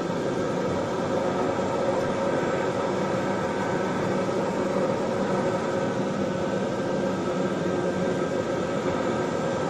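Turboprop airliner's engine and propeller running during taxi, heard from inside the cabin: a steady drone with several held tones over a rush of noise.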